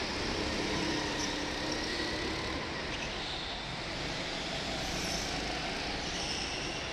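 Go-kart engines running on an indoor track, their pitch rising and falling as the karts speed up and slow down through the corners, in a large echoing hall.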